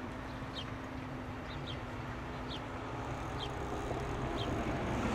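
Steady rumble of passing road traffic that grows louder toward the end, with a small bird giving short, high, falling chirps about once a second.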